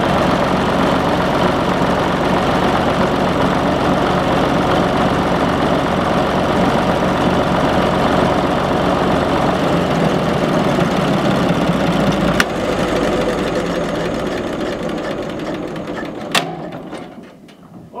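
International UD18 six-cylinder gas-start diesel engine running steadily on diesel, then shut down: about twelve seconds in there is a sharp click and the engine runs down, with another click a few seconds later before it stops.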